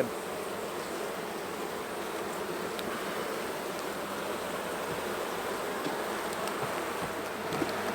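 Honey bees swarming around an open hive, a steady buzz of many bees, the colony stirred up by smoke during a frame inspection.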